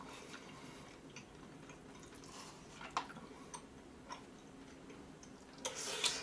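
Quiet eating: scattered light clicks of a plastic spoon against a cup-noodle cup, with chewing. Near the end there is a louder noisy spoonful taken into the mouth.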